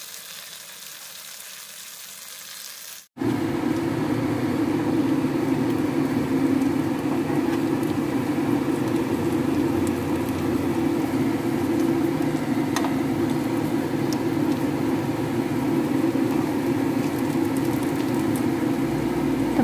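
Goat satay skewers sizzling in butter and sweet soy sauce in a nonstick frying pan, softly at first. After a sudden cut about three seconds in, the frying comes back much louder over a steady low rushing noise, with a few light clicks of metal tongs as the skewers are turned.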